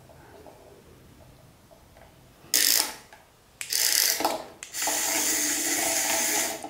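Small geared motor of a remote-control toy cockroach whirring in three bursts, starting about two and a half seconds in: a short one, then one of about a second, then a longer run of about two seconds.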